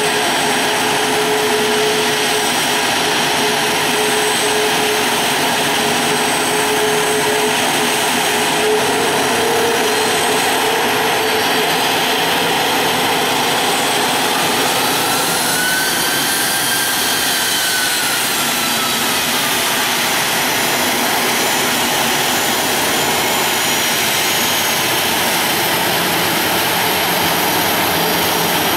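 Boeing 737-500's CFM56 turbofan engines running steadily, a loud jet roar with a thin whine; midway a higher whine rises and then falls as the airliner turns on the ground.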